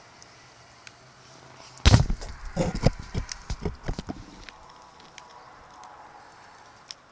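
A loud knock about two seconds in, followed by a couple of seconds of lighter, irregular clattering knocks.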